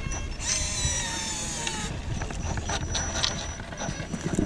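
Small electric winch motor on a scale RC crawler whining as it reels in the line and pulls the truck up a rock. About a second and a half of high whine falls slightly in pitch, followed by light clicks and scrapes.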